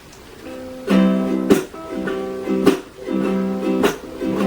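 Ukulele strummed chords, starting about half a second in, with a sharp, clipped strum roughly every second and a quarter.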